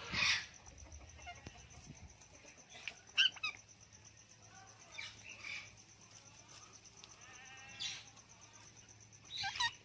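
Ringneck parrot giving short squawks and chattering calls, about five of them spaced a second or two apart.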